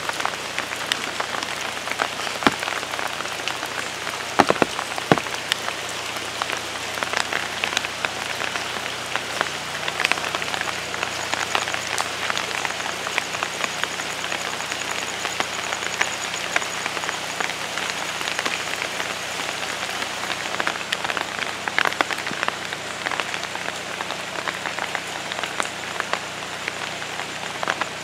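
Rain falling on the ground and garden foliage: a steady hiss filled with a dense patter of drops, with a few sharper drop hits about four to five seconds in.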